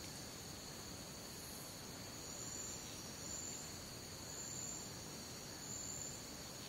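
Rainforest night insect chorus: crickets and other insects trilling steadily at a high pitch, with a higher, shriller call swelling up four times.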